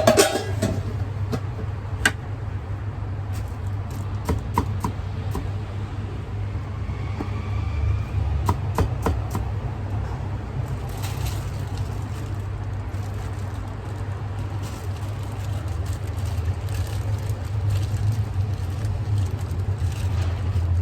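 A steady low hum runs through, with a sharp knock right at the start and scattered clicks and knocks after it.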